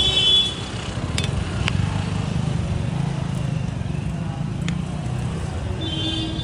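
Street traffic running steadily, with a short high-pitched tone, like a horn, that stops about half a second in and another near the end, and a few light clicks.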